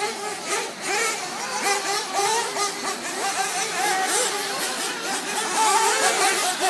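Several 1/8-scale nitro RC buggies' small two-stroke glow engines screaming together, each rising and falling in pitch as the cars accelerate and ease off around the track.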